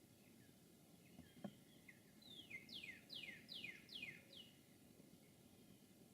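A songbird sings one phrase of about six down-slurred whistled notes, evenly spaced over about two seconds, over faint outdoor hiss. A single soft knock comes about a second and a half in.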